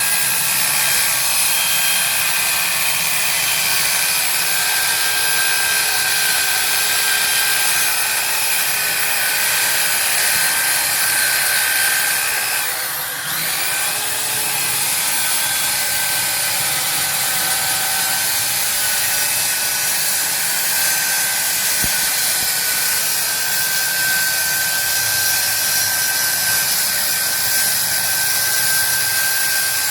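Electric circular saw running steadily with a high motor whine, which dips briefly about 13 seconds in.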